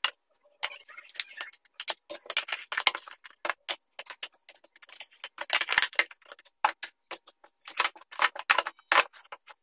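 Irregular clicks, taps and rustles of plastic food-storage boxes and paper towel being handled and set down, with a denser rustling stretch around the middle.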